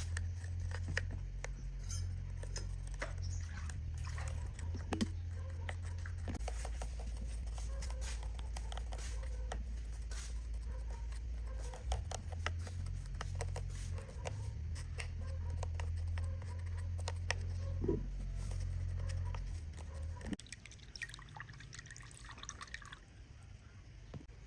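A low steady hum with light clicks and small liquid sounds on top; the hum stops about twenty seconds in.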